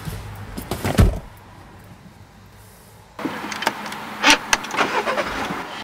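A car door shuts with a thud about a second in. From about three seconds in a steady noise fills the car's cabin, with several sharp clicks.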